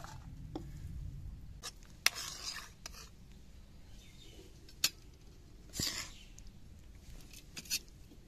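Steel ladles clinking and scraping against steel plates and a pan as rice and curry are served: a scatter of sharp single clinks, with two short scrapes about two seconds in and again about six seconds in.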